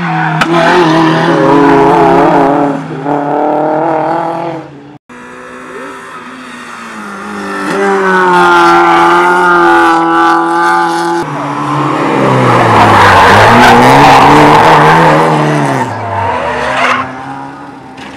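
Street cars running hard on a kart track: engines revving high as they pass, with an abrupt cut about five seconds in. Later an engine note falls and then climbs again through a corner, with tyre squeal.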